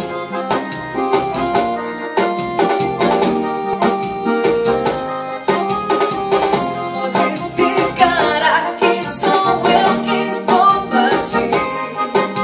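Yamaha arranger keyboard played with both hands: the intro of a sertanejo song, with many quick notes over a steady beat.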